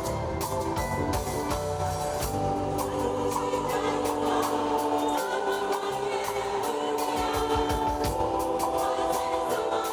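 A choir singing a carol in a gospel style with instruments behind it, in long held notes.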